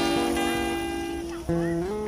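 Background guitar music: a held chord rings and slowly fades, then new plucked notes come in about one and a half seconds in.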